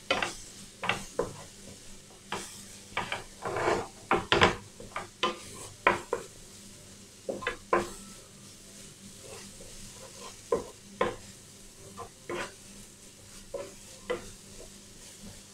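Wooden spatula stirring and scraping a thick onion-tomato masala around a nonstick frying pan, in irregular scrapes and taps, with a faint sizzle of the frying masala underneath. The masala and its spice powders are being sautéed until their raw smell cooks off.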